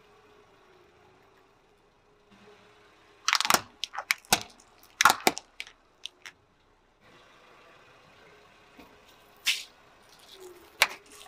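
Hard plastic cracking and snapping as it is crushed under a slowly rolling car tyre: a quick run of loud, sharp cracks a few seconds in, a few smaller snaps after it, then two single cracks later on.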